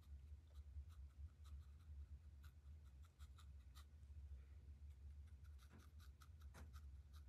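Faint, irregular light taps and scratches of a fine paintbrush dabbing thick sap green paint onto paper, over a low steady hum.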